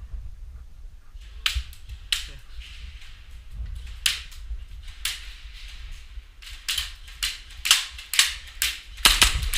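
Airsoft pistols firing in a skirmish: sharp cracks, a few spaced out at first, then coming in quicker, louder strings near the end.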